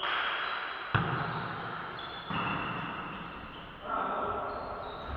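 A volleyball being struck, with a sharp smack about a second in and softer hits later, each echoing.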